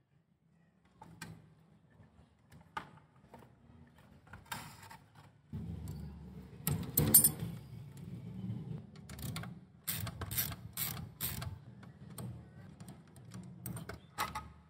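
Scattered metallic clicks and knocks of hands handling a stripped-down Honda CD70 motorcycle's parts. There is a loud click about halfway through and a quick run of clicks a little later. A low steady hum comes in about a third of the way through.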